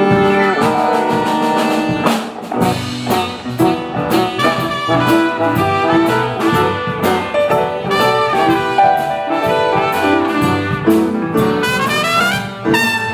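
Band with a brass horn section playing over drums, the horns holding chords and then climbing in a rising run near the end.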